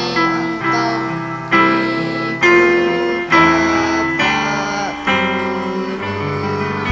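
Electronic keyboard playing slow sustained chords, a new chord about every second, as the instrumental introduction to a choir song.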